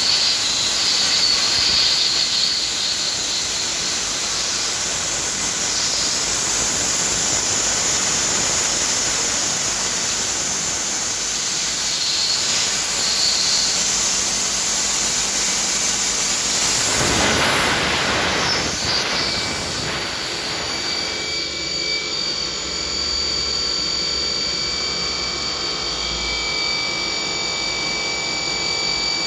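CNC machining centre milling an aluminium plate with a small end mill under coolant spray: a steady hiss of cutting and spray, with a high spindle whine. There is a louder swell about two-thirds of the way through. Soon after, the hiss thins out and leaves steady high whining tones.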